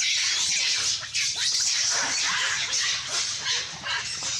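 Macaques screaming: a loud, harsh, continuous shrieking that cuts off suddenly at the end.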